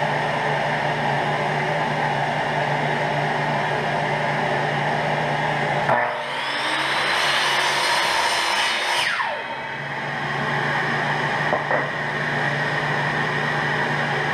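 Ryobi sliding compound miter saw cutting a wooden block, its motor running alongside a dust-collection vacuum on the saw's hose. About six seconds in the motor spins up anew with a rising whine, and about three seconds later it winds down with a falling whine; the steady hum then carries on.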